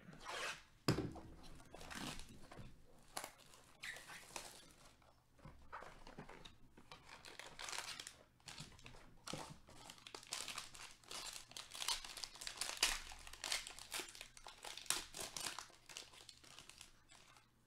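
Silver foil wrapper crinkling and tearing as gloved hands open it and pull out the card, in irregular crackling bursts, with a sharp knock about a second in.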